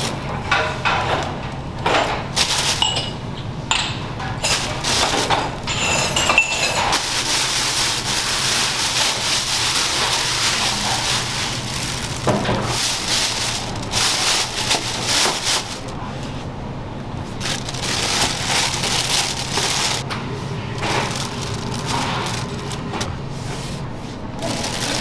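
Restaurant kitchen clatter: dishes and utensils clinking and knocking, with a stretch of steady hiss in the middle.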